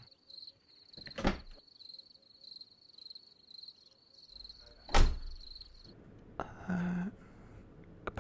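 A car door is opened with a thunk about a second in and shut with a loud slam about five seconds in. Behind it a cricket chirps steadily, a high pulsing trill that stops about a second after the slam.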